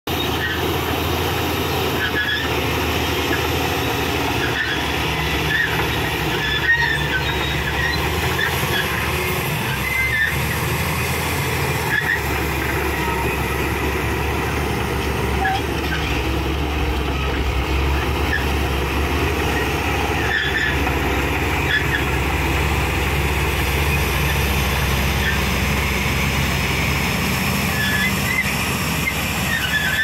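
Shantui SD16 crawler bulldozer's diesel engine running steadily under load while it pushes dirt and gravel, with short high squeaks and clanks from its steel tracks throughout.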